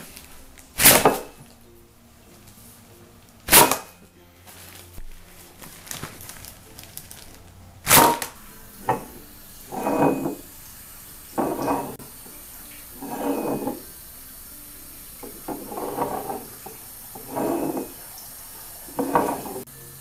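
Three sharp knocks and clatters of a mug and other small objects on a wooden table as a tablecloth is yanked out from under them. After them comes a run of short, muffled sounds about every second and a half.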